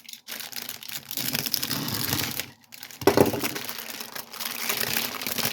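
Plastic packaging of a model kit crinkling and rustling as it is handled and opened, with small clicks and a louder crackle about three seconds in.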